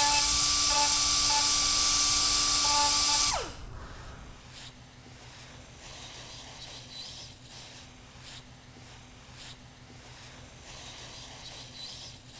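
Nitrogen hot-gas plastic welder blowing: a loud, steady hiss with a high whine, which stops about three seconds in with a short falling tone. After that only a few faint clicks of tool handling.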